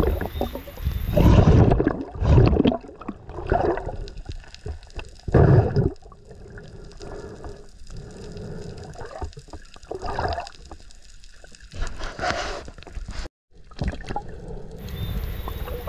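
Water gurgling and sloshing on a spearfisher's camera microphone in the sea, with several louder gurgling surges.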